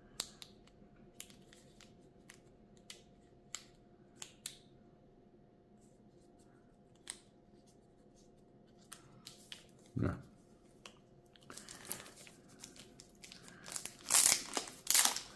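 Small plastic accessory cases tapping and clicking as they are handled, then loud crinkling and rustling of a plastic bag as a battery charger case is unwrapped, loudest near the end.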